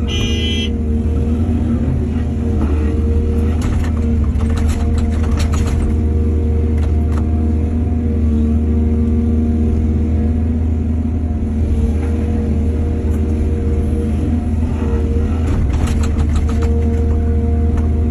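Heavy diesel excavator engine running steadily under load, with two spells of scraping and clatter from the bucket working soil, a few seconds in and again near the end. A short high squeal sounds right at the start.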